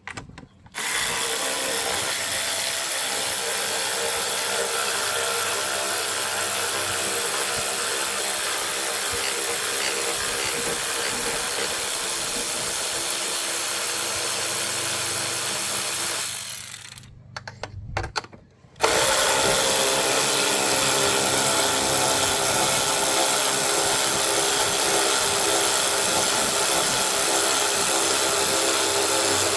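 Yard power equipment running with a steady loud rushing noise. It cuts out about two-thirds of the way through, then comes back slightly louder.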